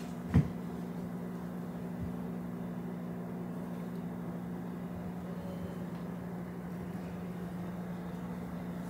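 Steady low machine hum of a household appliance running, with one sharp knock about half a second in.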